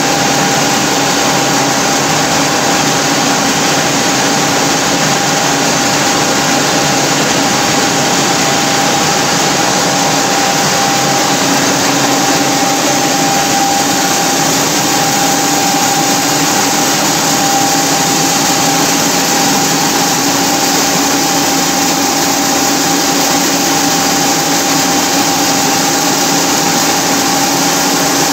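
Large vertical turret lathe running, its table turning a heavy steel workpiece as the tool cuts. The sound is a steady, loud machine drone with a steady whine over it.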